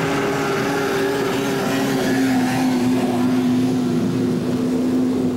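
Snowmobile engine running at steady high revs as the sled skims across open river water, holding one even pitch.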